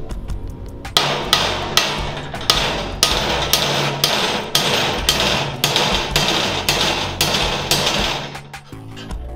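Brass hammer striking a kingpin bolt over and over to drive bushings into a minibike frame's steel neck tube. A few lighter taps come first, then steady heavy blows about two to three a second, stopping about a second before the end.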